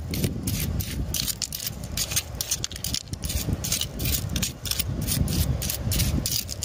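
Metal spoon scraping and clinking against wet pebbles and gravel as it digs, a quick irregular run of small clicks and scrapes, several a second, over a steady low rumble.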